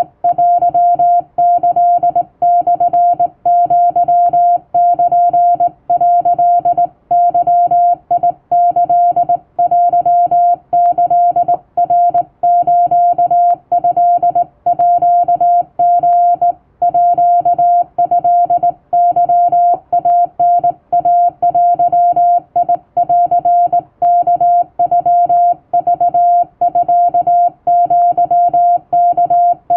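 Hand-keyed Japanese wabun Morse code: a steady single-pitch tone switched on and off by a telegraph key in a continuous run of dots and dashes.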